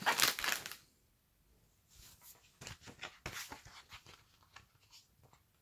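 Crisp packet crinkling as it is handled: a short crackly burst at the start, then faint scattered rustles and clicks of the packaging being turned over.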